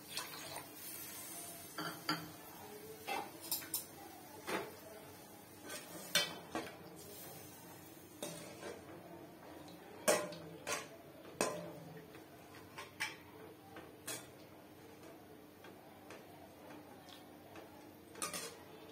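Metal perforated ladle clinking and scraping against a stainless steel kadai while stirring a watery curry: irregular knocks, loudest about ten seconds in, thinning out near the end.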